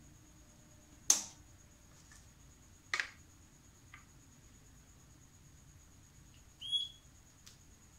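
Two sharp clicks, a loud one about a second in and another about two seconds later, as a bench power supply is switched on and its test leads are touched to the terminals of the headlight washer pump. The pump makes no motor sound: it does not spin, which the owner takes for an internal short. A short high chirp near the end.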